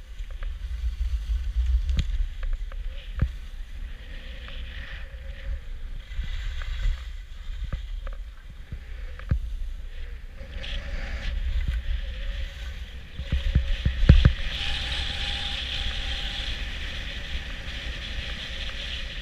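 Wind buffeting an action camera's microphone while skiing down a groomed run, with skis hissing and scraping over the snow, louder over the last few seconds. A few sharp knocks come through as well.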